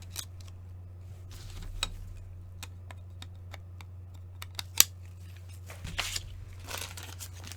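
Trading cards and pack wrappers being handled: scattered sharp clicks and taps with a few short sliding rustles, the loudest click nearly five seconds in, over a steady low hum.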